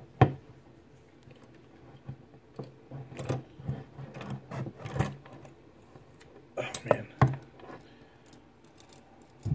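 Steel body-grip trap handled in the hands: its wire frame, spring and chain clink and rattle in scattered metallic clicks, with a sharp click just after the start and a quick cluster about seven seconds in.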